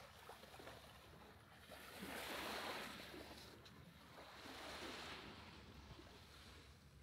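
Small waves washing in faintly, swelling twice: once about two seconds in and again near five seconds.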